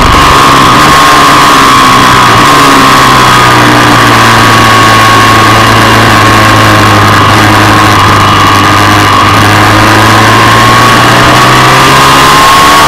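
Ducati 748 V-twin engine running hard, heard loud from on board the bike. It holds a steady note that sags slightly through the middle and climbs again near the end as the rider accelerates.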